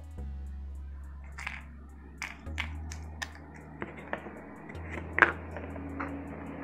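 Small plastic toy pieces and a clear plastic capsule half being handled and set down on a plastic tabletop. There are scattered light clicks and taps, the loudest a little past five seconds in, over soft background music with a low steady bass.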